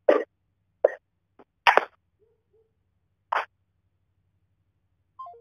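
Phone-call audio just after the hang-up: five short bursts of noise over the line, the loudest about two seconds in, with a faint steady hum beneath. Just before the end comes a brief three-step falling tone, a call-ended tone.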